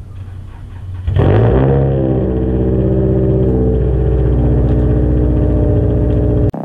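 A car engine starts up about a second in, revs up briefly, then runs loud and steady close by. It stops abruptly near the end.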